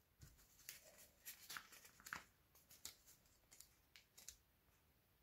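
Faint quick flicks and rustles of paper pages as a ring-bound DMC colour list is leafed through.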